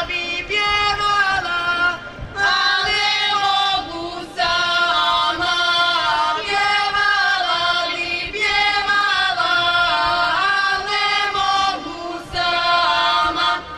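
Serbian women's folk singing group singing together, long held notes in phrases broken by short pauses.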